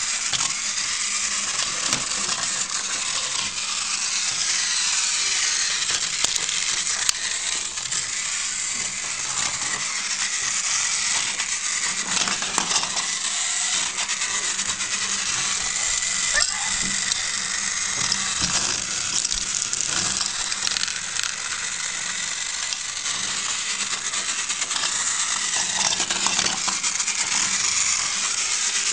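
Motorised Thomas and Percy toy engines running on plastic track, their small electric motors and gears whirring steadily, with frequent clicks and rattles.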